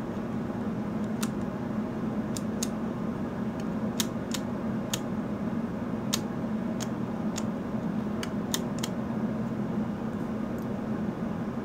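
Rotary sweep-speed switch on a Tektronix Type 531 oscilloscope clicking through its detents as it is turned: about fifteen sharp, irregular clicks. Under the clicks runs a steady fan hum.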